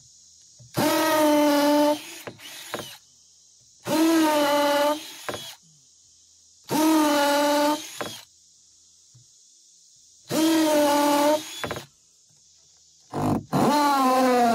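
Cordless drill run in four bursts of about a second each, each with a brief blip of the trigger after it, as it works into the lumber of a wooden roof truss. A steady high chirring of insects runs underneath.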